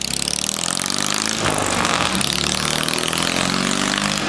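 Chang Jiang 750 motorcycle's flat-twin boxer engine accelerating away, its pitch rising, with a break about a second and a half in before it climbs again.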